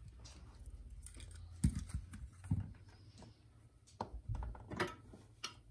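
Scattered light clicks and knocks of small metal parts and tools being handled and set down on a workbench, with a handful of sharper knocks in the middle and later part.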